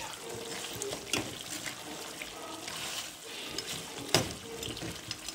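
A steel spoon stirring simmering lamb curry in a steel pot: a steady hiss of the bubbling gravy, with two sharp clinks of spoon against pot, about a second in and again about four seconds in.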